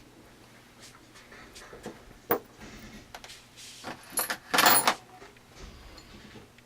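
Small steel rifle parts clicking and clinking as they are handled and set down, with scattered single knocks and a louder burst of metallic rattling and ringing about four and a half seconds in.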